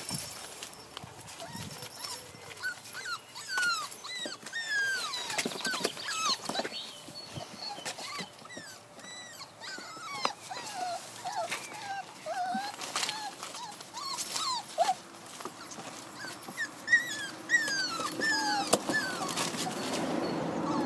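Entlebucher Mountain Dog puppies whining and squeaking: many short, high, sliding calls one after another, with a few sharp knocks now and then.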